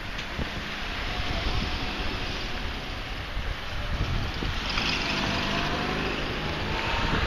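City street traffic: cars driving past, with wind noise on the microphone.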